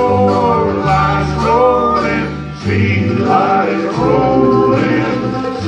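Live bluegrass band playing acoustic guitars, mandolin, banjo and upright bass, with male voices singing.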